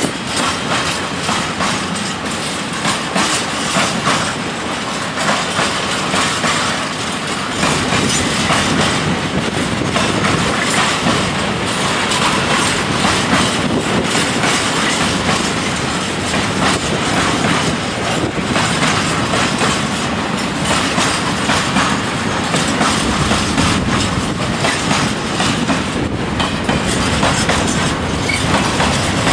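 Freight train of open wagons rolling past at speed, its wheels clattering over the rail joints in a steady rumble that grows a little louder about eight seconds in.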